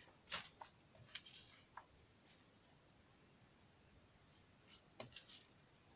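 Faint rustling and light scraping of paper sticker sheets being handled, in two short spells about a second in and near the end, with quiet between.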